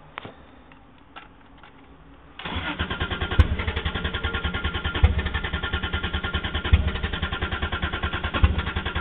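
A couple of faint clicks, then about two and a half seconds in a starter begins cranking a 1JZ-GTE twin-turbo inline-six in a steady, even rhythm, with no sign of it catching: the swapped engine won't start.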